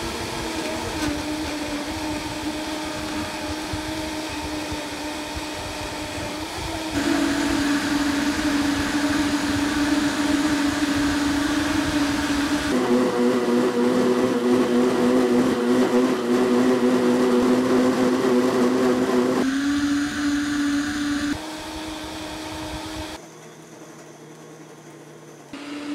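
High-powered Vitamix and Blendtec countertop blenders running at speed, blending smoothies with a steady motor whine. The pitch and loudness jump abruptly several times as one machine gives way to another, and the sound is much quieter for a couple of seconds near the end.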